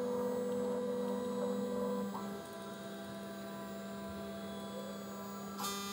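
CNC router spindle running steadily at 12,000 RPM, a steady hum-like whine. Its tones shift about two seconds in as the machine repositions the tool at safe height, and higher tones join near the end.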